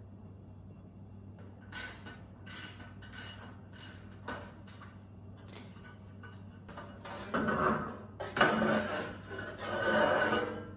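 Hand ratchet wrench clicking: short single strokes at first, then three longer, louder runs of rapid ratcheting in the last few seconds.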